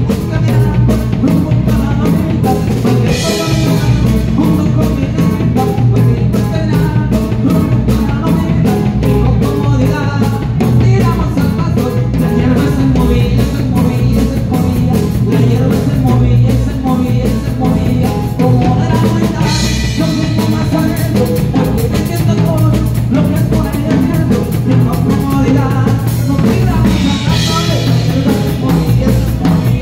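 Live band playing loud, steady music with a drum kit keeping the beat and a large acoustic string instrument strumming, with cymbal crashes about three seconds in, near twenty seconds and near the end.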